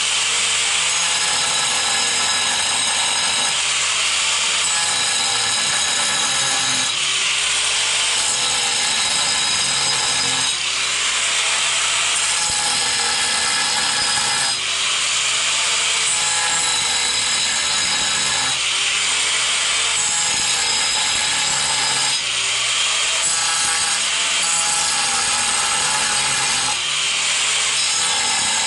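Angle grinder with a diamond disc running non-stop and sawing into the back of a ceramic tile. The cut changes in repeated strokes about every two seconds as notches are sawn in a star pattern to open a hole for a pipe.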